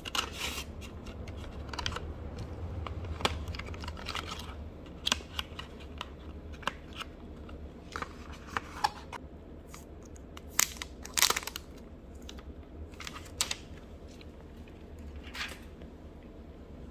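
Cardboard phone box and paper inserts being handled: irregular light taps, scrapes and short rustles of card and paper, over a steady low hum.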